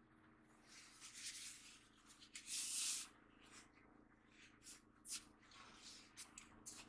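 Faint steady low hum in a van cabin, with a few short hissing rustles, the loudest about two and a half seconds in.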